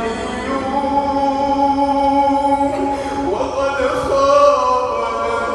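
A male voice chanting Quran recitation in melodic tajweed style, holding one long drawn-out note, then moving into a new rising phrase about three seconds in.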